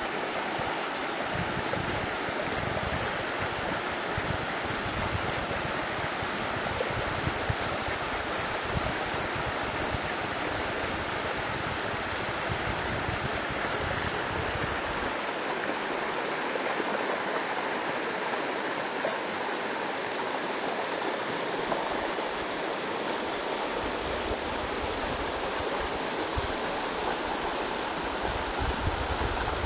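A shallow river running over riffles: a steady rush of flowing water. Wind buffets the microphone with an irregular low rumble that drops away for several seconds around the middle.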